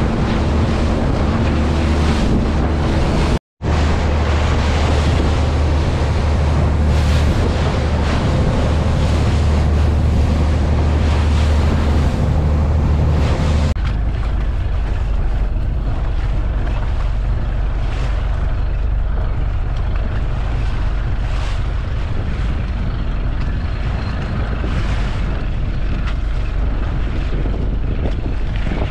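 Fishing boat's engine running at cruising speed, with wake spray and wind buffeting the microphone; the sound drops out for a moment a few seconds in. About 14 seconds in it changes abruptly to the engine turning over slowly, a lower drone with water along the hull and wind.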